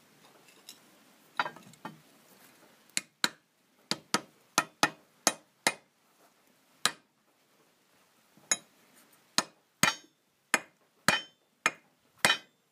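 Hammer blows on an old bearing race set over a new front hub bearing, driving it into a Lada Oka's hub: about sixteen sharp metallic strikes with a short ring, irregular and often in pairs, starting about three seconds in. The bearing is already seated, and the changed sound of these last blows is taken as the sign that it has bottomed out.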